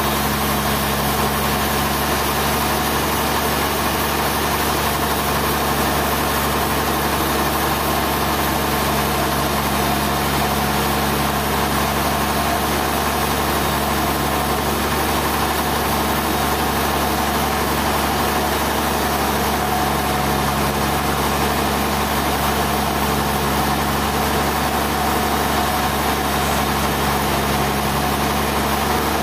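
Sawmill machinery running at a steady, unchanging drone with a constant hum.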